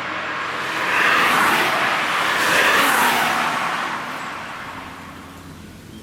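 Cars passing by in quick succession, with two loud swells about a second and a half apart before the sound fades away.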